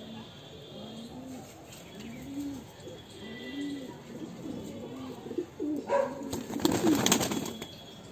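Domestic pigeons cooing, a low coo repeating about once a second. About six seconds in comes a loud rush of flapping wings lasting a second or so as a held pigeon is set down.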